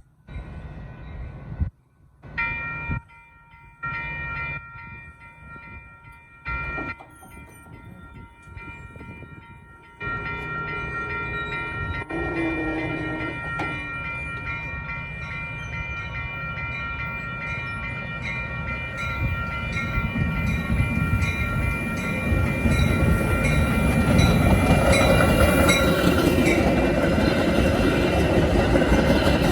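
Metra commuter train's multi-chime horn sounding the grade-crossing signal: two long blasts, a short one, then a long held blast. The train's rumble and wheel noise grow steadily louder as it draws near.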